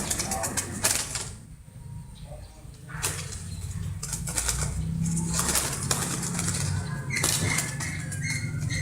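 A bird's wings flapping in several separate bursts of rustling, over a steady low hum.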